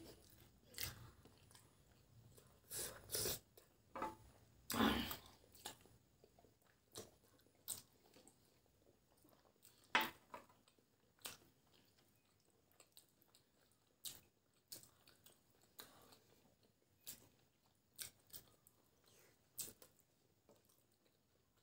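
Faint, irregular mouth sounds of eating boiled eggs in curry gravy: chewing, with short wet clicks and lip smacks. The louder smacks come about three, five and ten seconds in.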